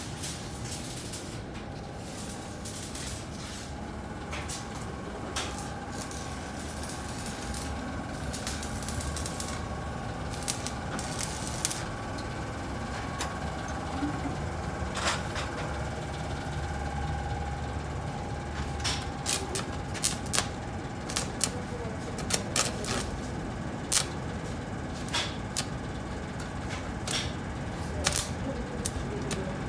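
Arc welding of a steel floor plate onto a truck bed: irregular crackling and popping, thicker in the second half, over a steady hum.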